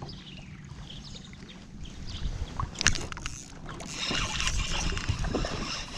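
Choppy lake water slapping against a kayak hull, with wind on the microphone. There is a sharp knock a little before the midpoint. From about two-thirds of the way in, a spinning reel whirs as line is cranked in on a hooked bass.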